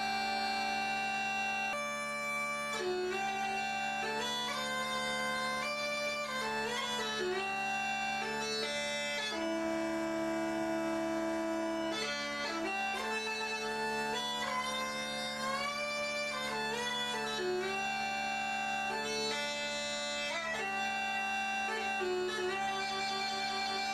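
Bagpipe music: a slow melody of held notes over a steady drone, with quick ornaments flicked in between notes.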